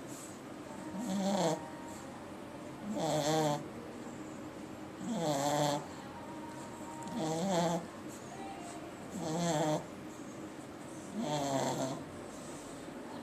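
A sleeping dog snoring: a rasping, pitched snore on each breath, about every two seconds, six times over, with quieter breathing between.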